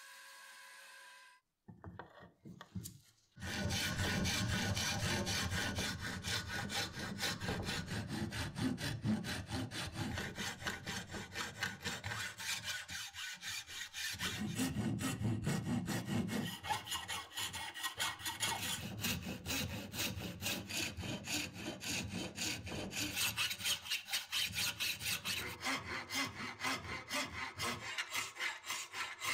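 A bandsaw motor hums briefly, then cuts off. A hand saw then cuts a slot into a wooden block with rapid back-and-forth strokes. In the later part a round file rasps along the groove in the wood.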